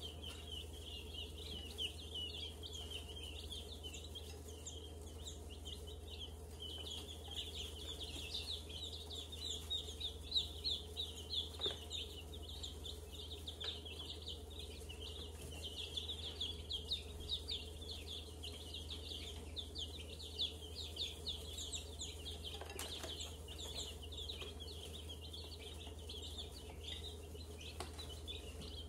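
A brood of baby chicks peeping nonstop, many short high chirps overlapping.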